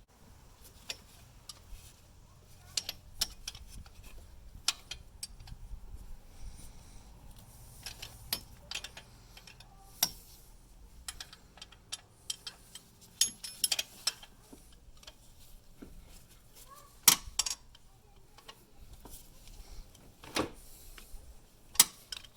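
Hand tools clinking and clicking against metal engine parts, with irregular sharp clicks throughout and a few louder knocks near the end.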